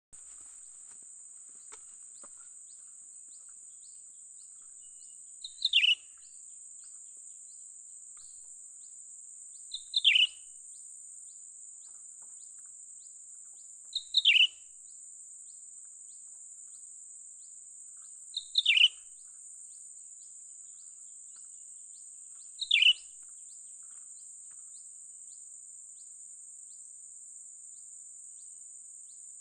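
Cucak ranting bird call repeated five times, each a short sharp note sliding downward in pitch, about every four seconds, over a steady high hiss.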